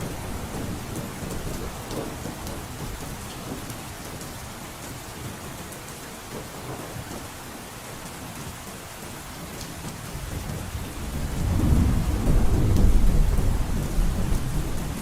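Heavy rain falling steadily on a roof, with scattered drop ticks. A deep rumble of thunder builds about eleven seconds in, peaks and begins to fade near the end.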